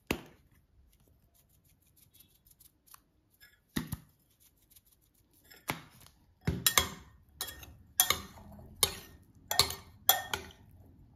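Metal spoon mixing a couscous salad in a glass bowl, knocking and scraping against the glass. A single knock comes a little before halfway, and from about halfway on there is a string of sharp clinks, roughly two a second.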